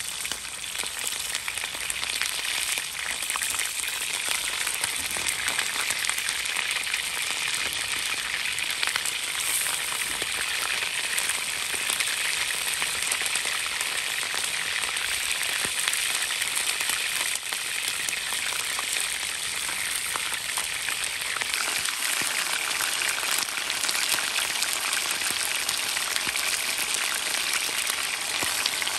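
Food frying in hot oil in a frying pan: a steady sizzle with dense crackling spatter.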